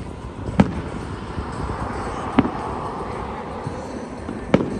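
Distant aerial firework shells bursting: three separate sharp booms about two seconds apart.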